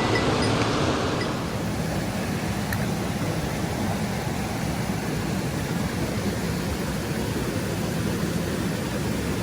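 Rushing water of a mountain stream, a steady loud hiss. It turns a little duller and quieter about a second and a half in.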